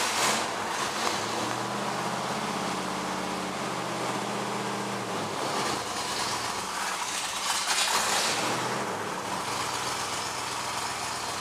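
A 1976 Pontiac Grand Prix's V8 idling steadily just after being started, heard from inside the cabin, with a brief louder swell of noise about eight seconds in.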